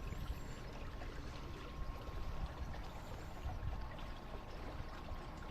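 Water lapping and trickling against a small boat's hull as it moves, with a low rumble underneath and a faint steady hum.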